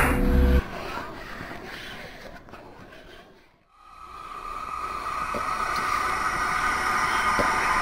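Dark intro sound design over a title card. A low droning chord cuts off suddenly under a second in. A hissing rumble then fades almost to nothing and swells back up into a steady rushing, train-like noise.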